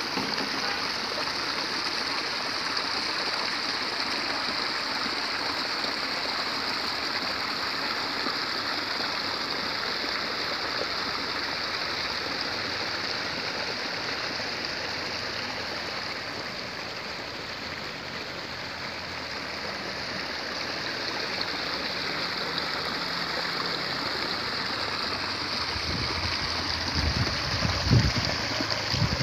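Water flowing steadily through rice-paddy irrigation channels, a continuous trickling rush. A few low thumps near the end.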